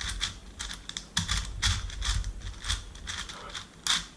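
Rubik's Professor 5x5 cube turned quickly by hand: an irregular run of plastic clicks and clacks, several a second, with one sharper clack near the end.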